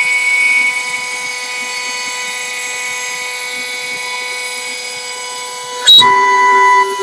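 CNC router spindle milling a wooden turkey box call blank held in a rotary 4th axis, with a steady high whine as the bit cuts. About six seconds in there is a sharp click, then the tone gets louder and changes for about a second.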